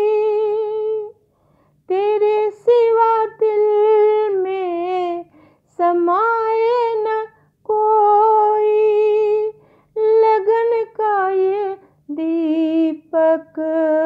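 A woman singing a Hindi devotional bhajan solo, with no accompaniment. She holds long, steady notes in several phrases, with short pauses between them.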